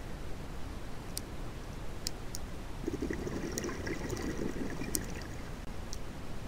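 Scuba diver's regulator exhaust: a gurgling burst of exhaled bubbles from about three to five seconds in, over a steady low underwater rumble, with a few sharp clicks.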